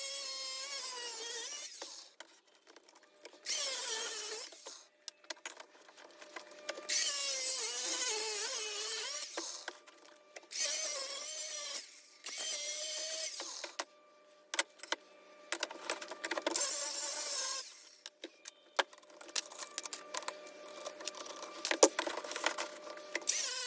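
A small handheld power tool running in short bursts of one to three seconds with pauses between, its whine wavering in pitch as it works the metal, followed near the end by scattered sharp clicks.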